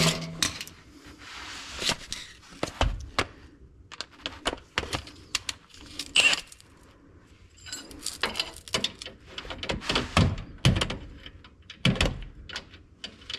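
Irregular sharp clinks and thunks of a socket and hand tools being worked on a shock absorber's mounting bolt.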